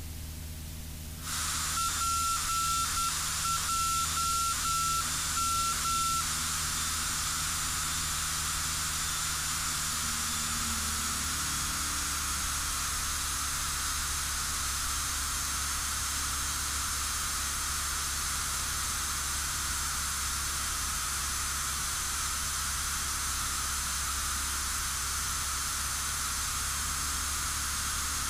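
Steady radio hiss on the cockpit intercom with no transmissions, under a low hum. For the first few seconds a single high beeping tone sounds in short repeated pulses, then stops.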